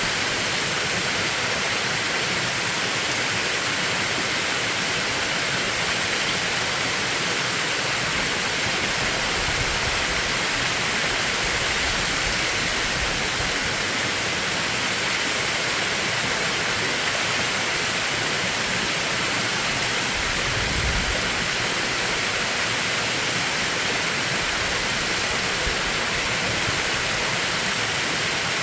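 A mountain valley stream rushing steadily over rocks, a dense, even hiss of running water. A couple of brief low rumbles rise under it about ten and twenty seconds in.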